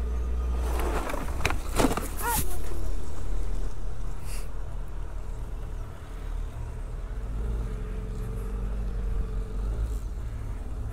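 Low steady rumble of a stopped Suzuki Hayabusa motorcycle's inline-four engine idling. About one to two and a half seconds in, a few sharp clicks and short squeaky glides sit over it.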